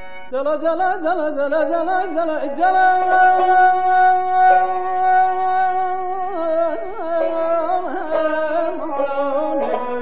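Azerbaijani mugham with tar and kamancha: an ornamented melody with quick trills, a long held note from about two and a half to six seconds in, then more trilled phrases.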